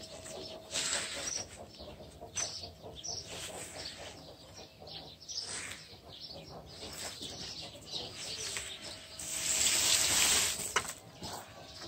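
Scattered rustling and scuffing, like a young monkey scrabbling in sand and netting, with small bird chirps in the background. A louder, longer rustling hiss comes about nine seconds in and ends with a sharp click.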